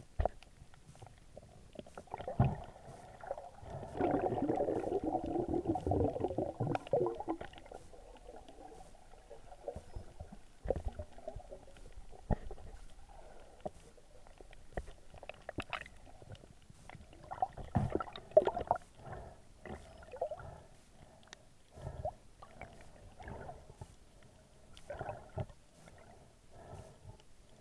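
Muffled underwater sound from a camera held under water. A few seconds of gurgling, bubbling water start about four seconds in, followed by scattered knocks and short gurgles.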